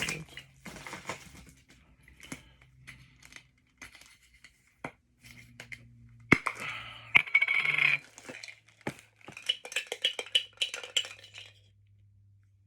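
Unpacking a Funko Soda can: scattered clicks and clinks of the can and its lid being handled, with bursts of packaging rustling about halfway through and again a few seconds later.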